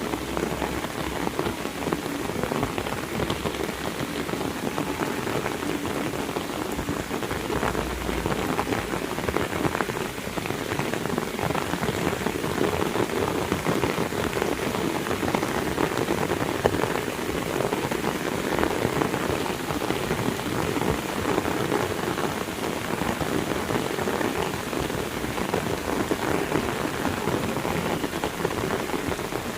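Heavy rain falling steadily, a dense, even patter of countless drops hitting surfaces.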